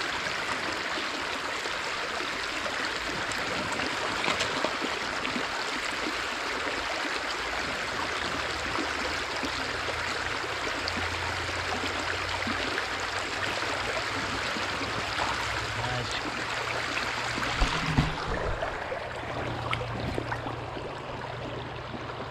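Shallow stream riffle rushing steadily over rocks. Near the end come a couple of sharp knocks, after which the rushing is softer and duller.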